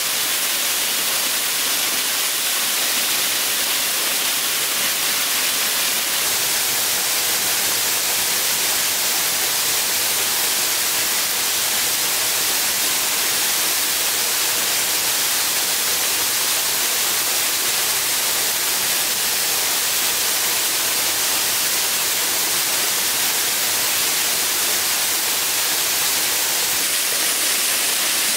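Waterfall rushing: a loud, steady hiss of falling water.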